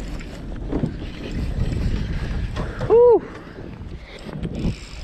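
Wind rumbling on the microphone over open water, with a man's breathy "whew" about three seconds in.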